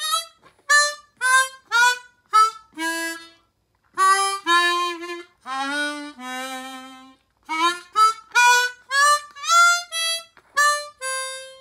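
Hohner chromatic harmonica playing a short blues phrase of quick notes, many starting bent and scooping up to the unbent pitch (dip or scoop bends). There are a few longer held notes in the middle, and a held note at the end.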